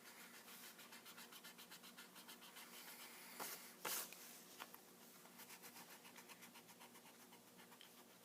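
Faint, rapid back-and-forth strokes on paper, about five a second, from pencil drawing or erasing, with two louder taps around the middle.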